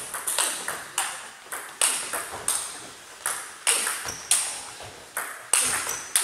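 Table tennis ball being hit back and forth in a rally: sharp, irregular clicks of ball on bat and ball on table, a few every second, each with a short echo off the hall walls, with more ball clicks from other tables mixed in.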